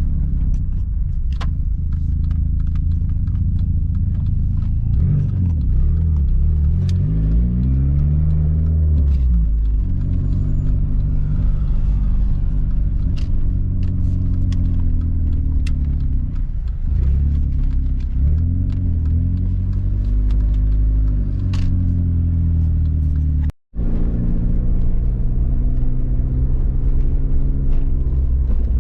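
Audi B5 car driving, heard from inside the cabin: a steady low engine and road rumble whose engine note rises and falls several times with acceleration and gear changes. The sound cuts out for an instant about two-thirds of the way through.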